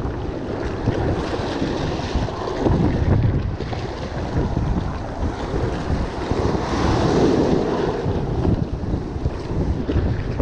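Wind buffeting the microphone over surf breaking on the beach, with louder surges of wave wash about 3 and 7 seconds in.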